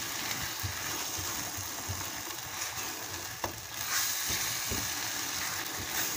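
A tomato-and-paprika sofrito sizzling in a non-stick frying pan as a spatula stirs it, with a few light scrapes of the spatula against the pan.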